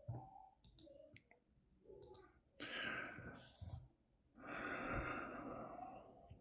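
A man breathing close to the microphone between sentences: one breath about two and a half seconds in, then a longer, sigh-like breath out about a second later.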